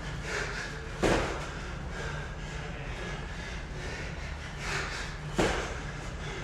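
Two heavy thuds on a gym floor, about four seconds apart, over steady room noise.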